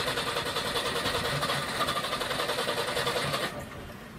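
Trabant's two-stroke two-cylinder engine running with a fast, rattly pulse just after being started, then dropping off sharply about three and a half seconds in.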